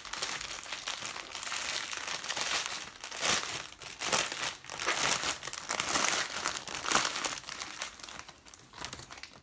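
Clear plastic wrap crinkling as hands handle it and peel it off a rolled kit. It comes in uneven spells, loudest in the middle, and dies down near the end.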